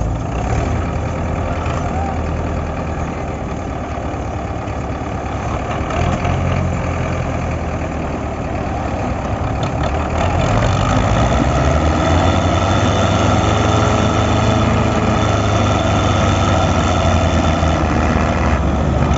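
MTZ Belarus tractor diesel engines running steadily, getting louder about halfway through and staying at that level.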